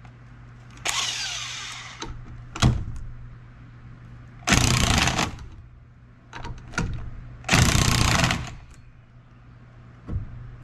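Cordless drill/driver spinning a socket on the top nut of a shock absorber's piston rod in three short bursts, about a second in, around the middle and a few seconds later, with a brief blip between the first two. The rod turns along with the nut, so the nut won't tighten.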